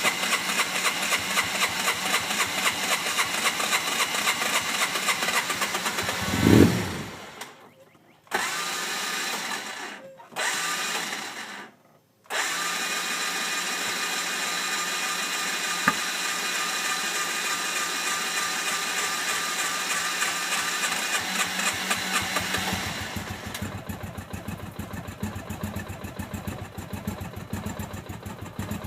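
Hard-starting Polaris RZR engine: it runs, swells loudly once and dies, catches and cuts out twice in quick succession, then keeps running, its note changing a little near the end.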